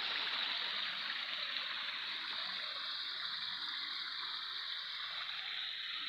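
Small waterfall splashing over rocks into a pool, a steady rush of running water.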